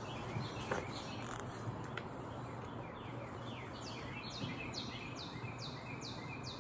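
A songbird singing outdoors: a run of short down-slurred chirps that comes quicker, about two a second, in the second half, over a steady low background hum.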